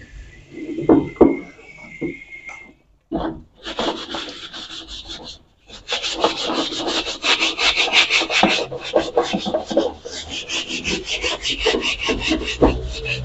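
Fast back-and-forth scrubbing on the outside of a thin drum-steel wok under running tap water, several strokes a second, steady from about four seconds in. A couple of sharp knocks come about a second in.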